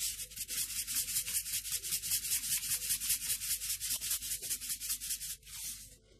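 Salt being dispensed over minced chicken and chopped onion: a fast, even run of gritty strokes, about seven a second, that stops about six seconds in.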